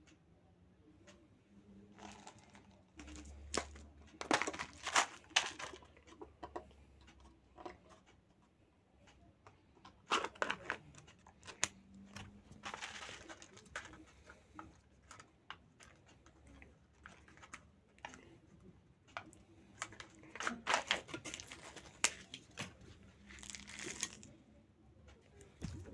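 Plastic yogurt-cup packaging crinkling and tearing in scattered bursts as the cup is handled and its clear plastic lid is pulled off, with a few soft knocks of handling.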